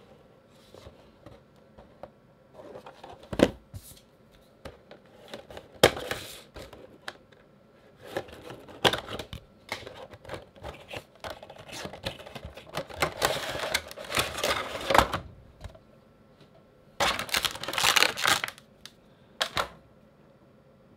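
A Funko Pop box being opened by hand: cardboard and clear plastic packaging rustling, crinkling and sliding, broken by sharp clicks and taps. The packaging noise comes in bursts, the longest stretch in the middle, with a last brief tap near the end as the vinyl figure is handled on the desk.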